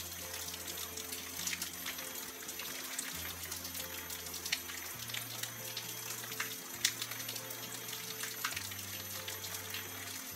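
Water falling from a stone spout into a basin, a steady splashing with scattered drips, over soft background music of sustained low notes that change pitch every couple of seconds.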